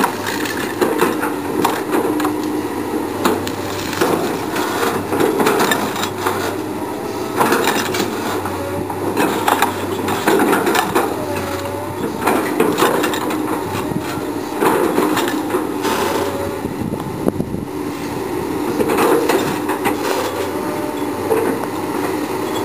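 Komatsu PC220 hydraulic excavator's diesel engine running steadily while its bucket rips through brush, with repeated cracking and snapping of branches and woody shrubs.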